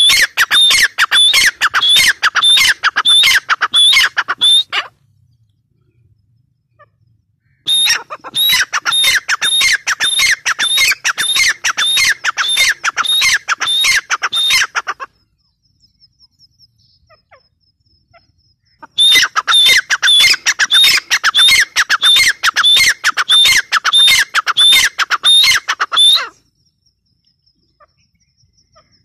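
Female grey francolin calling: rapid high-pitched notes repeated about three a second, in three long bouts separated by pauses of a few seconds.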